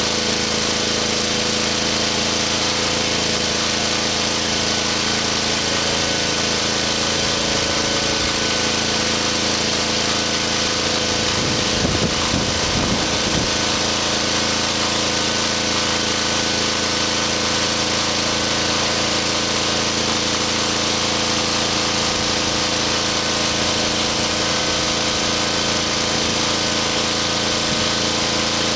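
Diesel generator engine running steadily at constant speed, brought back to life after its fuel injection pump was refitted, timed and bled. A few brief low bumps come about twelve seconds in.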